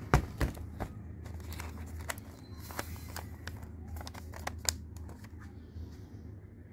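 Sheets of paper being handled and pressed down over a panel: crinkling and crackling with scattered sharp clicks and taps, the loudest a sharp click right at the start. A steady low hum runs underneath.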